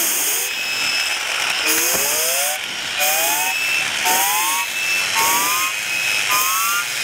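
Sbabam Tornado blow-powered toy cars being blown into hard through their turbos: puffs of rushing breath, each with a whistling tone that glides up in pitch. The puffs come about once a second, and each whistle starts higher than the last.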